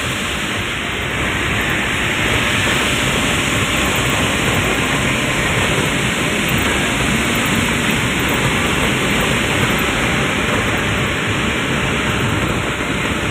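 Steady rushing noise inside the cab of a moving dumper truck: wind, road and engine noise blended into an even roar with no changes.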